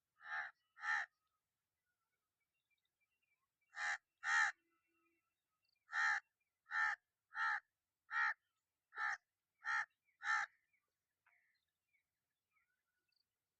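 A crow cawing: eleven short, harsh caws in groups, a pair near the start, another pair about four seconds in, then a steady run of seven caws about two-thirds of a second apart.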